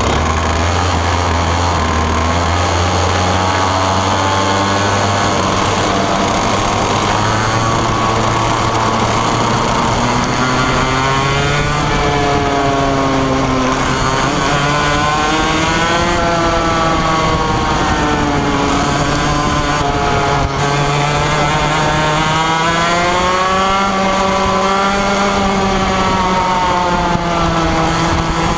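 Onboard sound of a 125cc two-stroke TaG racing kart engine pulling away. Its pitch climbs over the first ten seconds or so, then rises and falls over and over with the throttle through the corners.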